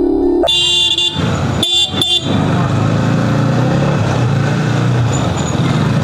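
Vehicle horns beeping several times in the first two seconds, short honks with a couple of quick beeps near the end. After that a motorcycle engine runs steadily at low speed.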